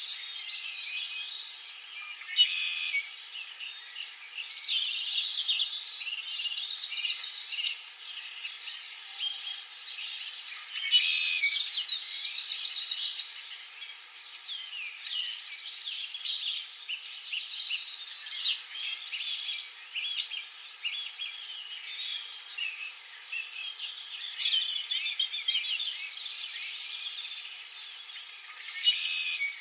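Several songbirds chirping and singing at once, with many short high chirps and one rapid high trill that repeats every five or six seconds.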